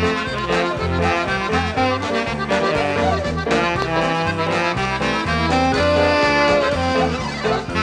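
Instrumental polka recording: accordion and brass over a bouncing two-beat bass line.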